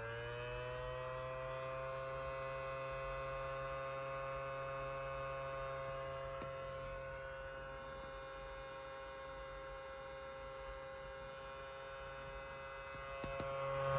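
Homemade hurricane-style siren with 3D-printed gears, run without a blower, sounding a steady wail. Its pitch finishes rising just after the start, then holds level as one tone with many overtones. It fades a little midway and swells again near the end.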